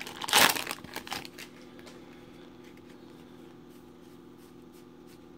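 Foil wrapper of a baseball card pack crinkling as it is pulled open, loudest in the first half second with a smaller crinkle about a second in. After that only a faint steady hum and a few soft ticks remain.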